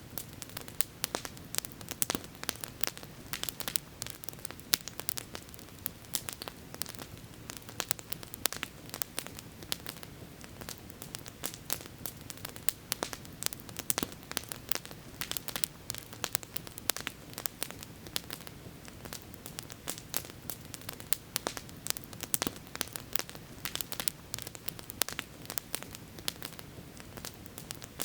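Campfire crackling steadily: a dense, irregular run of sharp pops and snaps from burning wood, over a steady low rush.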